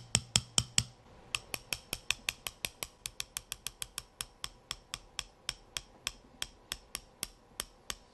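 A hammer tapping a pin punch again and again, driving out the pin that retains the firing pin in an AK bolt. A quick run of taps comes first, then a short pause about a second in, then steady light taps about four to five a second.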